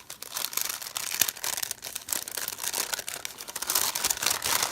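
Crinkly packaging being handled and rustled by hand, a continuous run of small crackles and rustles.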